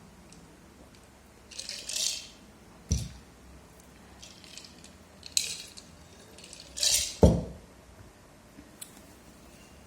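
Dishes and cutlery being handled: short bursts of scraping and rustling, with two sharp knocks about three seconds in and just after seven seconds, the second one the loudest.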